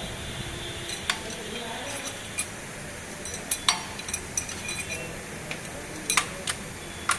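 Metal tools and engine parts clinking and tapping during hand work on a diesel engine: scattered sharp clinks, with a quick pair about six seconds in.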